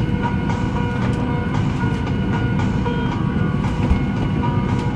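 Cabin noise inside a parked Boeing 737-800 during boarding: a steady low hum with a few faint clicks and knocks.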